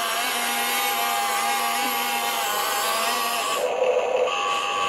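Huina 1593 RC excavator's small electric motors whining steadily as it slews and moves its arm while carrying a 12V cordless drill in its bucket. The whine changes briefly near the end as another motion starts.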